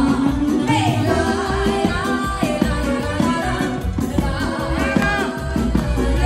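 Live band music: a woman sings into a microphone over saxophone and accordion, with heavy amplified bass underneath.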